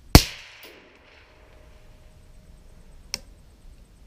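A single shot from a suppressed AR-15 SPR rifle (SilencerCo Omega suppressor) firing 55-grain ammunition, a sharp crack that rings off over about half a second. A much smaller short click follows about three seconds in.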